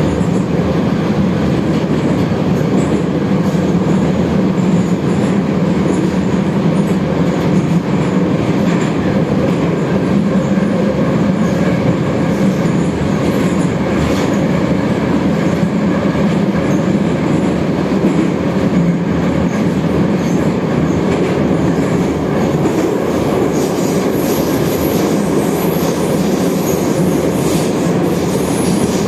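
Metro train running through a tunnel between stations, heard from inside the carriage: a steady, even rumble of wheels on the rails.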